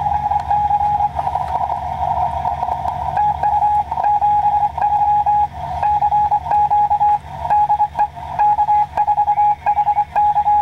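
Morse code (CW) from a ham radio transceiver's speaker: a single beep tone keyed rapidly in short and long elements, inside a narrow band of receiver hiss. A steady low hum runs underneath.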